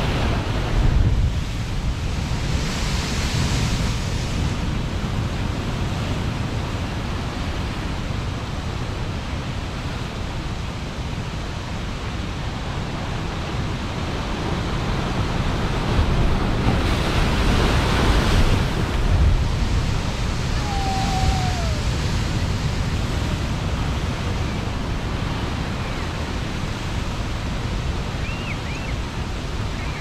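Large ocean surf crashing against a lava-rock coastline: a continuous low rumble of water, swelling twice into louder hissing surges of breaking wave and spray, about two seconds in and again around seventeen seconds in. Wind buffets the microphone.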